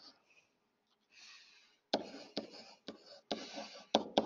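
Stylus writing strokes on a writing surface: soft scratching broken by sharp taps as the pen touches down, most of them in the second half.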